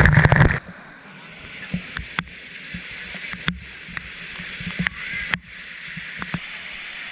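Rushing water of a waterfall, a steady hiss that is louder for the first half second, with a few brief clicks.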